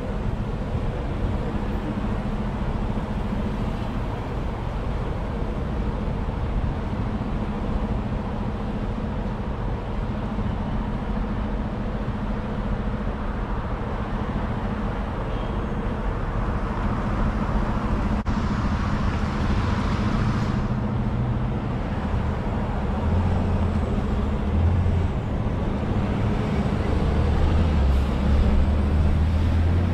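Road traffic driving over a railroad grade crossing: cars passing with a steady low engine hum underneath, a louder passing hiss about two-thirds of the way in, then a box truck's heavier low rumble near the end.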